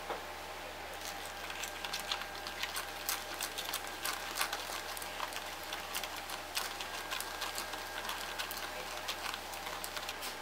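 A plastic straw stirring fizzing powdered cola in a small thin plastic cup: quick irregular clicks and taps of the straw against the cup and the crackle of bubbles, starting about a second in.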